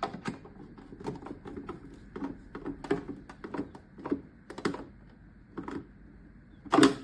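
Screwdriver tightening small screws into an air purifier's plastic fan cover: irregular clicks and knocks of the tool and plastic parts, with a louder knock near the end.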